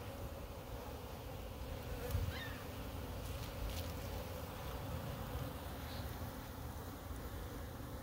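Honey bees fanning and buzzing at the hive entrance, a steady hum. The fanning draws more air through the hive, which is damp and moldy.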